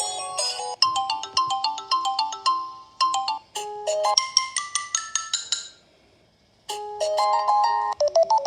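Mobile phone ringtones: a melody of quick, short notes that stops a little past the middle, then after a pause of about a second a different tune starts.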